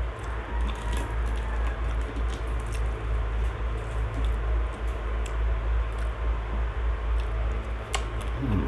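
Eating by hand: fingers picking at fried catfish and rice, with soft chewing and small mouth and food clicks, over a steady low rumble.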